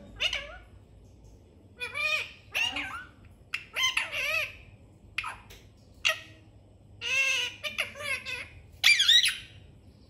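Rose-ringed parakeet calling: a string of short squawky, chattering calls with pauses between them, bending up and down in pitch.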